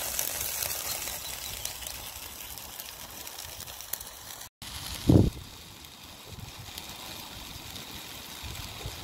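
Chicken and rice sizzling steadily in a GSI Pinnacle non-stick frying pan over a small folding wood-burning twig stove, with one dull thump about five seconds in.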